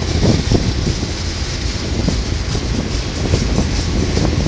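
Freight train cars (tank cars and covered hoppers) rolling past close by: a steady low rumble of steel wheels on rail, with irregular clacks over the rail joints.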